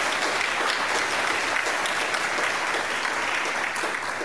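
Audience applauding: steady clapping from many hands that begins to die down near the end.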